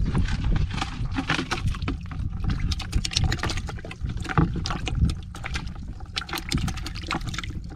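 Water splashing and trickling in a plastic bucket as live shrimp are tipped in from a jar, many small splashes and drips one after another over a low rumble.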